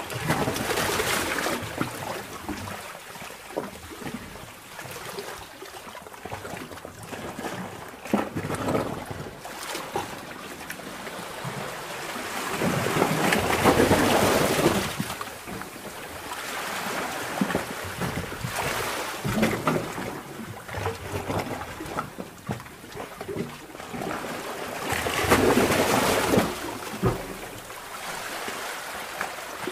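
Underwater sound of sea water surging and sloshing in a sea cave. It swells loudly three times, about a second in, midway and near the end, with gurgles and trickles between the surges.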